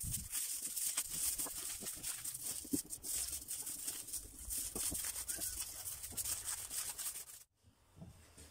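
Aluminium foil crinkling and crackling as it is folded by hand into a boat-shaped tray. It stops abruptly about seven and a half seconds in.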